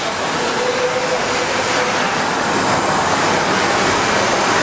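A 2.5 m × 1.3 m UV flatbed printer running mid-print: the steady mechanical whir and hiss of its moving print-head carriage and machine fans.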